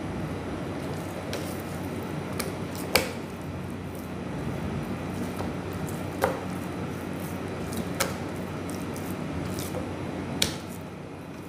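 Four sharp knocks and a few lighter ticks on a plastic cutting board as raw beef is handled and trimmed, over a steady background hum.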